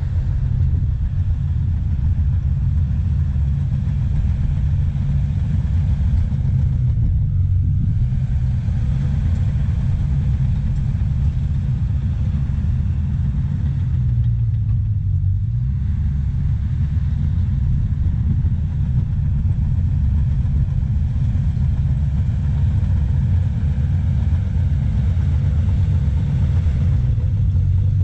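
Diesel engine of a Cat tracked earthmover running steadily, a deep low drone that holds at the same level throughout.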